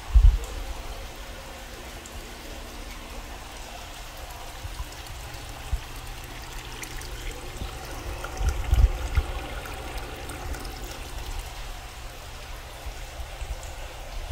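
Water pouring and splashing steadily into a fish-fry tank of a recirculating aquaculture system. A couple of low bumps come just after the start and again about halfway through.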